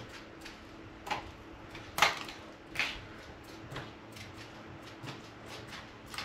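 Light clicks and taps of balsa wood wing parts being handled and pressed into place by hand, four or so sharp ticks with the loudest about two seconds in, over a faint steady hum.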